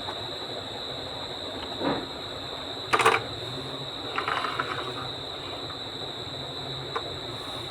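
Wooden marble run with things rolling and clattering along its tracks: a sharp cluster of clicks about three seconds in, a short rattle about a second later and single knocks around two and seven seconds, over a steady hiss with a faint high whine.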